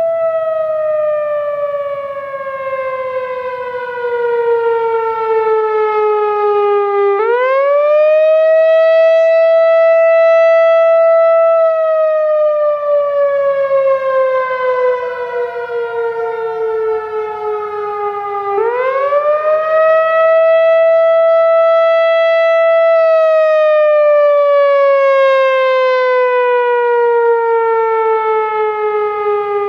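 Whelen WPS-4004 electronic outdoor warning siren sounding its attack signal: a loud, rich tone that rises quickly, holds for a few seconds, then slides slowly down before rising again, cycling about every eleven seconds.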